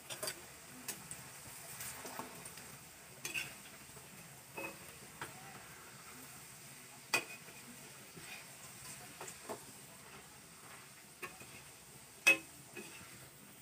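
Puris deep-frying in hot oil in an iron kadhai: a faint, steady sizzle. Scattered clinks and scrapes of a metal utensil against the kadhai, the loudest about seven seconds in and again near the end.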